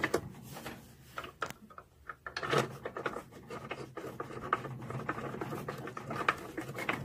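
Hand tightening a screw on the plastic housing of a green-onion shredder while reassembling it: light rubbing and scraping with scattered small clicks.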